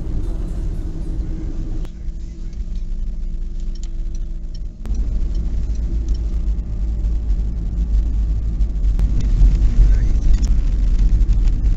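Car driving noise heard from inside the cabin: a steady low rumble of road and engine. There is a quieter stretch with a steady engine hum between about two and five seconds in, then louder rumble again.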